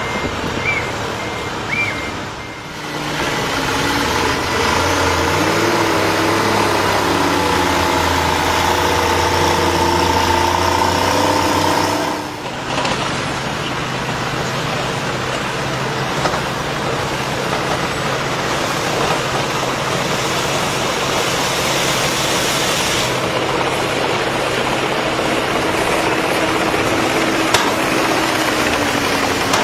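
Heavy vehicle engines and machinery running steadily at a construction site, with a droning engine hum. The sound breaks off and changes abruptly about twelve seconds in, then continues as a steady mechanical din.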